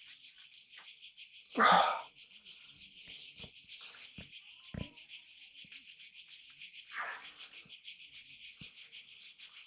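Insects chirring steadily, a shrill high-pitched drone with a fast, even pulse. Over it come a short rush of noise about two seconds in, a softer one about seven seconds in, and a few faint knocks.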